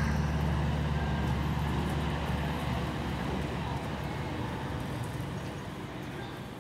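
A low, steady rumbling drone, traffic-like in character, slowly fading out.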